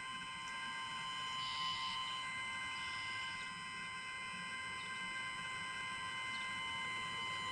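Battery-powered electronic instrument holding a steady drone of several high tones stacked together, unchanging in pitch. A short hissy burst sits on top about one and a half seconds in.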